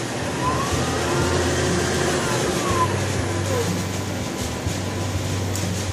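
Spindle of a King Rich GMV-4 CNC vertical milling machine running in reverse on variable speed control, over a steady low hum. Its whine rises in pitch for about two seconds, then falls back as the speed is turned down.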